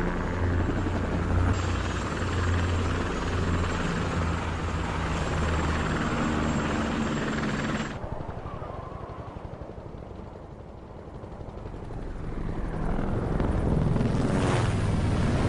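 Helicopter running, with a steady rotor chop and engine drone. About eight seconds in, the sound turns duller and quieter, then it swells again near the end.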